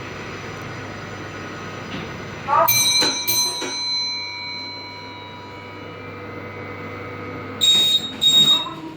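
Passenger lift in operation: a few sharp metallic clanks with a ringing tone about three seconds in, a steady low hum of the car moving, then two loud ringing strikes near the end.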